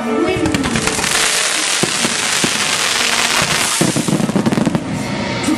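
Aerial fireworks crackling in a dense, rapid run of small pops, then heavier, deeper pops about four seconds in.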